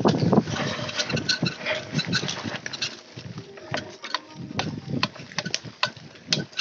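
Mountain bike descending a rough dirt trail: tyres rolling over dry leaves and dirt while the chain and components clatter in irregular clicks and knocks, loudest in the first three seconds.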